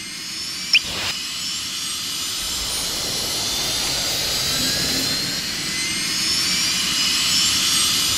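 Sci-fi jet-thruster sound effect, a steady rush that slowly swells with a rising whine. A brief high chirp sounds about a second in.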